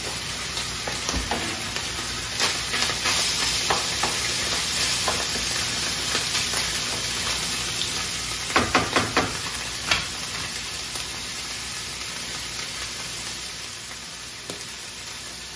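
Ground meat and diced bell peppers sizzling in a skillet. A little past halfway, a spatula scrapes and clacks against the pan in a quick run of about four strokes, then once more.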